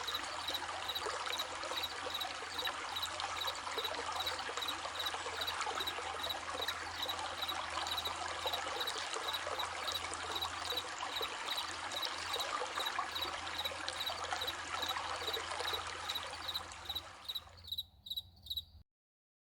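Steady babbling stream with crickets chirping in a regular pulse over it. Near the end the stream fades away, leaving the crickets alone for about a second before the sound cuts off.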